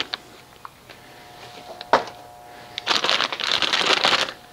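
Clear plastic bag crinkling as it is handled, starting about three seconds in, with one sharp click about two seconds in.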